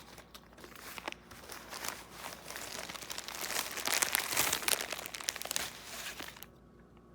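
Plastic or paper packaging crinkling and tearing as a parcel is opened by hand, loudest a little past the middle and stopping about a second before the end.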